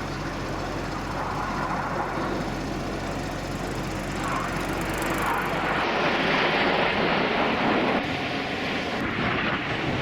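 Aircraft flying past, a steady engine roar that swells louder about halfway through and eases off near the end.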